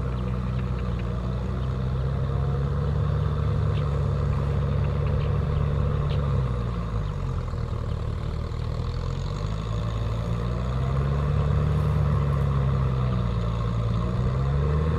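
Kubota M6040SU tractor's four-cylinder diesel engine running steadily while it pulls a cultivator through a rice field. Its pitch sags about seven seconds in and again near the end, then picks back up.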